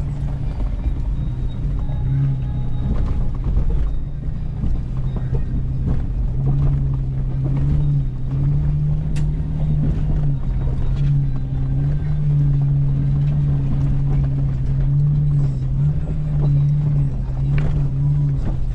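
Toyota FJ's engine running steadily at low speed, heard from inside the cabin, its pitch shifting a little with the throttle as it crawls over a rough, rutted dirt road. Occasional knocks and rattles from the body and suspension over the bumps.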